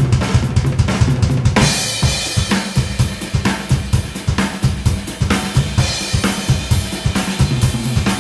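Acoustic drum kit played fast and busy: rapid snare, tom and bass drum hits, with a crash cymbal about a second and a half in and again past the middle.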